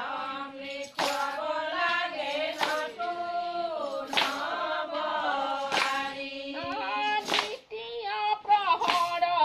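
Group of women singing an Assamese Aai naam devotional song together, clapping their hands in time with a clap about every one and a half seconds.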